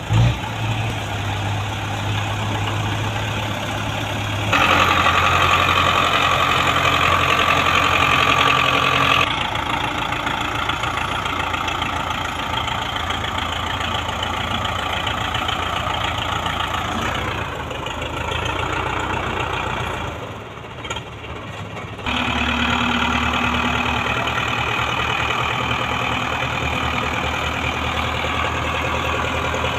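Diesel tractor engines running steadily under the load of a sugar cane trolley. The sound jumps abruptly several times: louder and brighter from about 4 s to 9 s in, then a brief dip near two-thirds of the way through before it returns.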